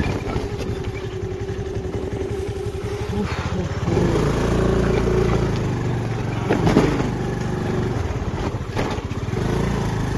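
Small two-wheeler engine running steadily under the rider on a rough dirt track. It gets louder and deeper about four seconds in, with a brief louder moment near seven seconds.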